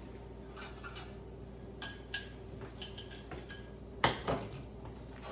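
A metal spoon clinking and knocking against a pan of frying oil as sweet-potato donut balls are stirred and pressed down, about eight sharp clinks spread out, the loudest a little after four seconds in.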